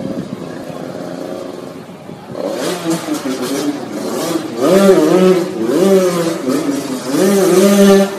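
Motorcycle engine running quietly, then from about two and a half seconds in revving hard, its pitch climbing and dropping several times, loudest near the end.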